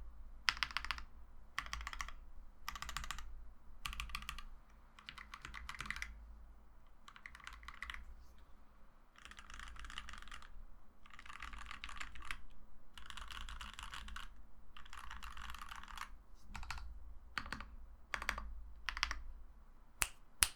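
Typing on a frosted acrylic Alice-layout mechanical keyboard with PBT keycaps and lubed C3 Equalz Tangerine V2 linear switches: short bursts of keystrokes, denser continuous runs in the middle, and two sharper, louder strokes near the end.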